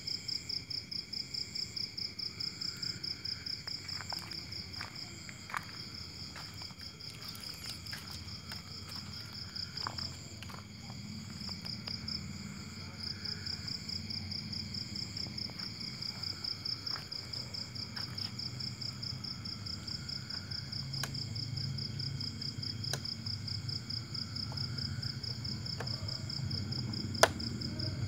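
Crickets chirping in a steady, fast-pulsing trill, with a low rumble underneath. A few faint clicks, and one sharp click near the end.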